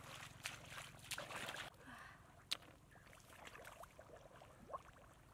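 Bare legs wading through shallow muddy water in a flooded rice field, sloshing splashes a few times a second that stop about a second and a half in. After that, soft water sounds with one sharp knock about two and a half seconds in.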